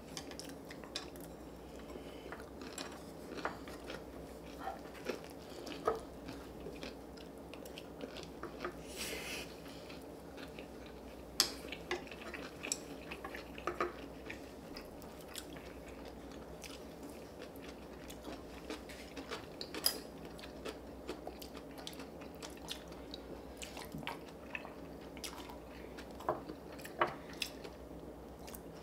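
People eating at a table: chewing and biting, with scattered clicks and clinks of cutlery against dishes at irregular moments over a steady low background hum.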